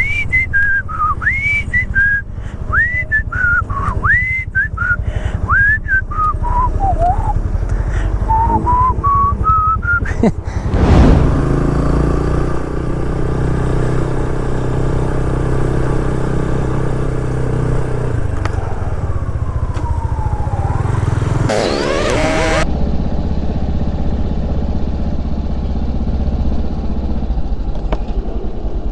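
Motorcycle engine running under wind rumble while someone whistles a tune over it for the first ten seconds. About eleven seconds in comes a loud whoosh, then the engine runs on with a steady drone.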